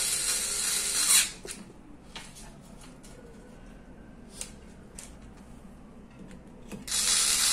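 Screws being driven into a hub motor's aluminium side cover with a driver. There are two loud, rasping bursts: one lasting about the first second, another starting near the end. Light clicks and taps come between them.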